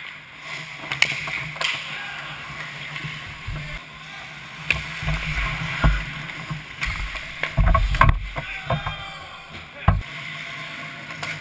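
Ice hockey skate blades scraping and carving on the ice near the goal, with several sharp clacks of sticks and puck; the strongest come about eight and ten seconds in.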